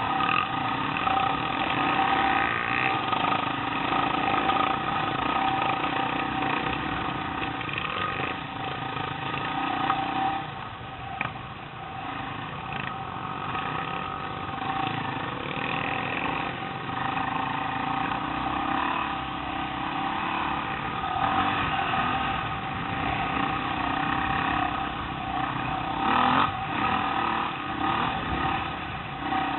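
Dirt bike engine running under throttle along a dirt trail, its level swelling and easing, with a short dip about eleven seconds in.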